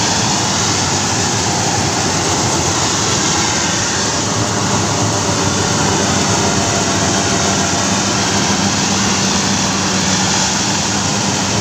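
FMWORLD rice combine harvester running as it harvests: a steady, loud drone of engine and threshing machinery with a low hum underneath.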